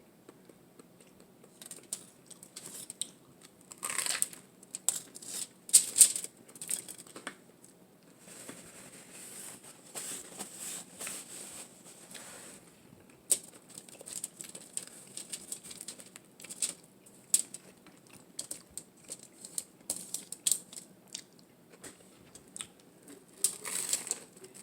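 Close-miked eating of a toasted bacon avocado tuna melt: irregular crisp crunches and smacks from biting and chewing. There is a softer, steadier stretch of chewing noise about a third of the way in.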